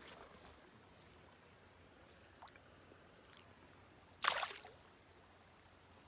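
A single short splash about four seconds in, over faint steady creek water: a smallmouth bass being let back into the stream.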